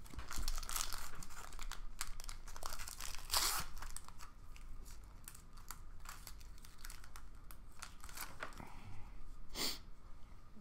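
Foil hockey-card pack wrapper crinkling and being torn open by hand, with two louder crinkles, one about a third of the way in and one near the end.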